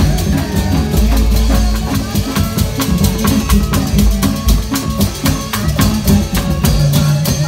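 Loud live Indramayu reog music: fast, steady drumming with sharp, rapid percussive strikes over a deep bass, and a thin melodic line gliding above it.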